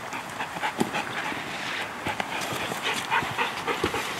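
Halvstövare hound whining and panting eagerly as it pulls on its leash, with quick footsteps and scuffs on the ground.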